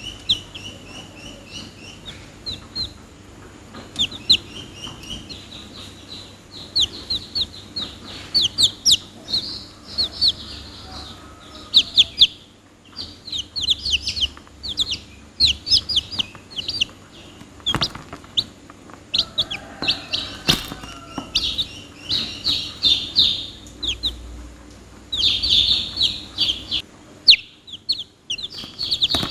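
Domestic chicks peeping: many short, high cheeps that fall in pitch, coming in quick runs throughout, with a couple of sharp clicks near the middle.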